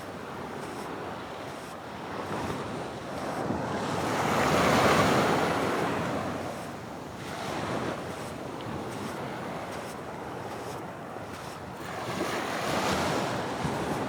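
Atlantic waves breaking on the shore: surf that swells and falls away, loudest about a third of the way in, with a smaller wave soon after and another near the end.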